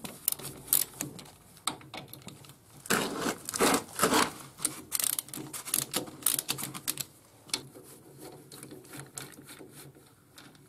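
Ratchet wrench clicking in rapid runs as the bolts of a VW Beetle swing-axle bearing cap are undone. The clicking is loudest about three to five seconds in and thins to faint, scattered clicks over the last few seconds.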